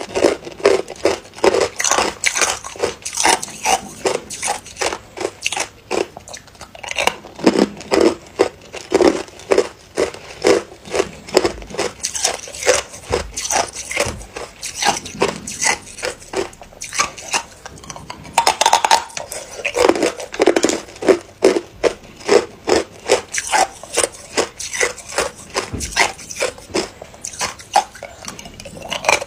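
Hard ice cubes crunched between the teeth: rapid sharp crunches, several a second, coming in runs with short pauses between mouthfuls.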